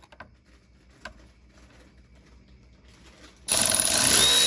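A few faint clicks and taps, then about three and a half seconds in an electric ratchet starts up loudly and runs steadily with a motor whine, spinning out a T25 Torx bolt.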